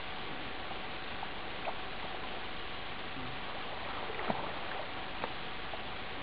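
Steady hiss with a faint hum, and a few faint splashes and sloshes of water from a man wading chest-deep, the clearest about four seconds in.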